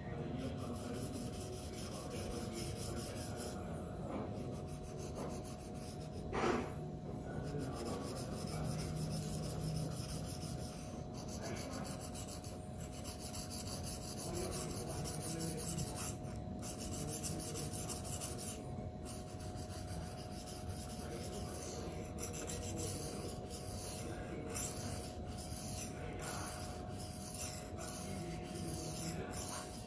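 Steel knife blade stroked back and forth on a coarse Venev resin-bonded diamond sharpening stone (F240/F400), a steady gritty scraping broken by short pauses between passes, with a brief knock about six seconds in. The strokes are refining the edge at the tip and belly.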